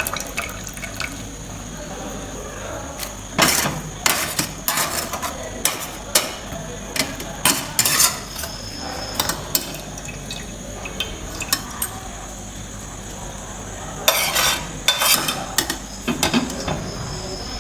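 A metal spoon clinking and scraping against a cooking pot or bowl as ingredients are mixed, in irregular clusters of knocks, with a pause in the middle.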